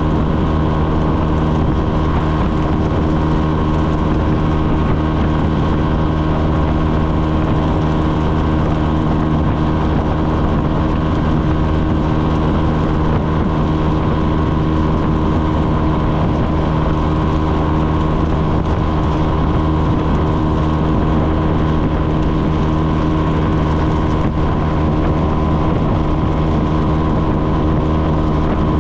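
125 cc motorcycle engine running at a steady cruising speed, one even drone whose pitch does not change.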